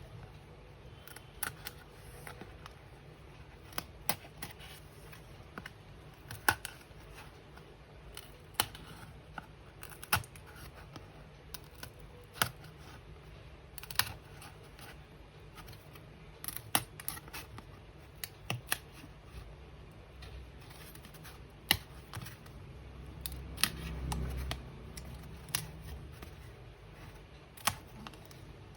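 Scattered sharp clicks and snaps, one every second or two, of hands pressing out and fitting 3D puzzle pieces, with a soft low rumble late on.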